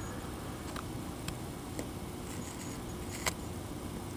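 A Brussels Griffon chewing on a plush football toy: a few scattered clicks and ticks over a steady hiss, the sharpest about three seconds in.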